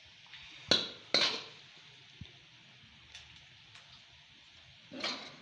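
Metal cookware clanking as chicken chilli dry is served onto a plate: two sharp clanks about a second in, half a second apart, then a softer scrape near the end.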